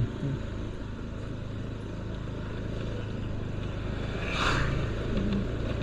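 Steady low rumble of motorbike and street traffic in a narrow lane, with a short hiss about four and a half seconds in.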